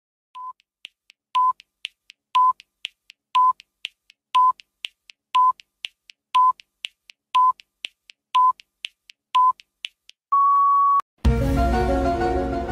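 Electronic countdown sound effect: a short beep once a second, ten times, with quick ticks between, then one longer, slightly higher beep. Music starts right after it, about eleven seconds in.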